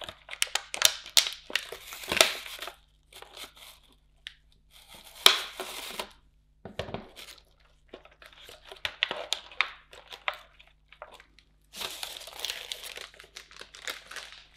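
Plastic wrapper of Milka Sensations cookies crinkling and tearing as it is handled, in irregular bursts with short pauses between them.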